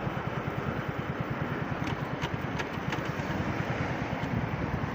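125 cc motorcycle engine running steadily, a low rumble with a fast even pulse, with a few faint clicks about two to three seconds in.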